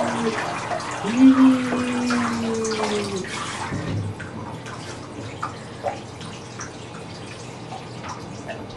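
Water running from a handheld shower head into a bathtub and splashing while a small child is rinsed. For the first three seconds a held hum-like tone sounds over it, stepping up in pitch twice.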